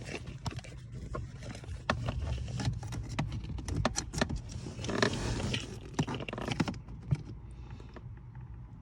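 Handling noise of scraping and rustling with a run of sharp clicks and knocks, as a scan tool's cable connector is brought to the car's OBD2 port and plugged in. The handling settles down near the end.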